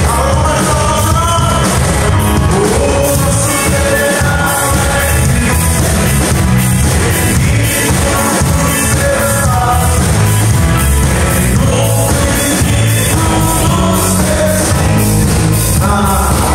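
Live gospel rock band playing a song: a man singing at the microphone over electric guitars, keyboard and a drum kit, with a strong steady bass line.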